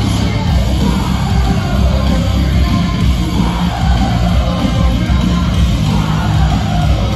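Hard rock band playing live at full volume, with electric guitars and drums, heard from among the audience in an arena.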